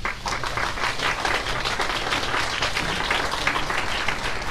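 Applause from a roomful of people: many hands clapping together, breaking out at once and keeping up thickly.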